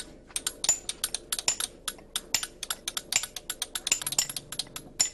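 Hand chiselling of stone: a hammer taps a chisel into a stone sculpture in quick, irregular sharp clicks, several a second, as the carver chips away the surface.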